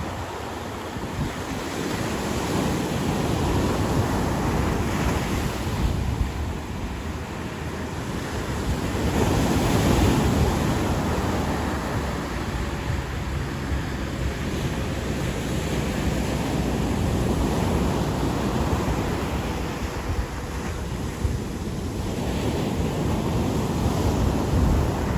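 Ocean surf breaking and washing up a beach, a continuous rush that swells and eases every several seconds and is loudest about ten seconds in. Wind buffets the microphone, adding a low rumble.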